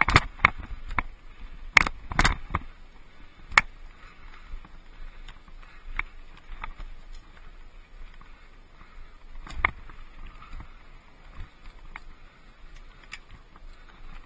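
Mountain bike rolling over rocky, gravelly single-track: steady tyre noise with sharp knocks and rattles as it hits rocks, several in the first couple of seconds and another loud one near the ten-second mark.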